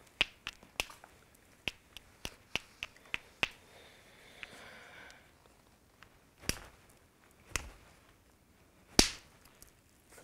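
Hammerstone striking a heat-treated Swan River chert core: a run of light, quick taps on the edge, then three harder single blows, the last and loudest. That last blow knocks off a flake that breaks into a bunch of pieces.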